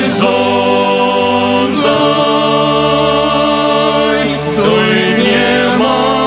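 Choir singing slow, long-held chords, apparently unaccompanied. The chord changes about two seconds in and again about four and a half seconds in.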